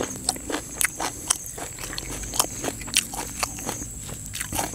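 Close-miked chewing of a mouthful of food: irregular wet mouth clicks and smacks, about two to three a second.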